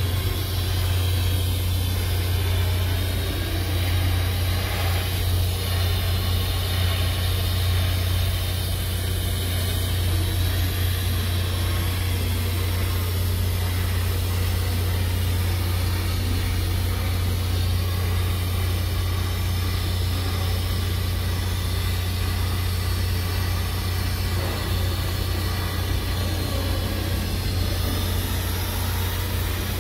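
TIG welding arc on carbon steel pipe: a steady low hum with an even hiss over it.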